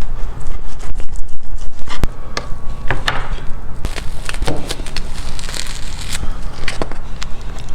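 Close-up eating sounds: crunching, crackling bites and chewing, with sharp clicks.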